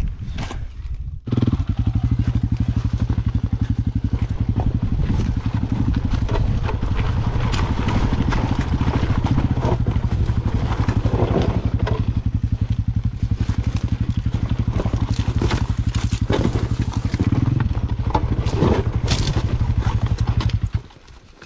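Dirt bike's single-cylinder four-stroke engine running at a low, steady speed down a rocky trail, with scattered knocks and clatter of the tyres and chassis over rocks. It starts abruptly about a second in and cuts off abruptly near the end.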